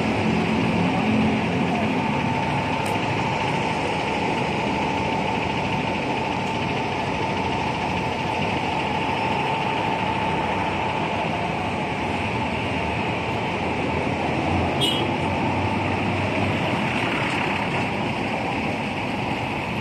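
City bus traffic passing: steady engine and road noise from large buses and other vehicles, with a faint steady whine for several seconds in the middle.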